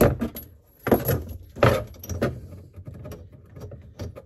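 Clinks and rattles of metal fittings being handled as a braided steel supply hose is fitted onto a sink shutoff valve, with three louder clatters in the first two seconds.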